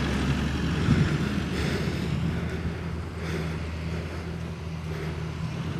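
Toyota Hilux pickup driving past close by across a ploughed field, its engine a steady low hum that slowly fades as the truck pulls away.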